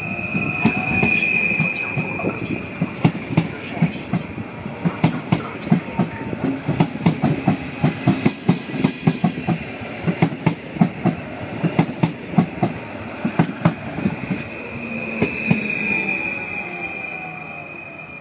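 PKP Intercity Stadler FLIRT electric multiple unit passing close along the platform. There is a steady high electric whine as each end of the train goes by. In between comes a long run of wheel clicks over rail joints, a few a second, and the sound fades as the train draws away near the end.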